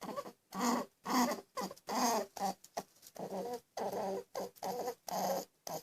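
A small animal making a run of short pitched cries, about two a second.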